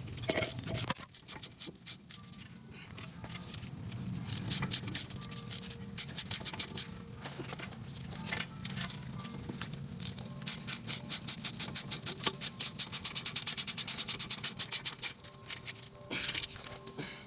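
Metal hand tools clicking and scraping on a car's front brake assembly during a brake pad change. About ten seconds in there is a run of rapid, even clicking, about five a second, lasting some five seconds. Faint background music plays underneath.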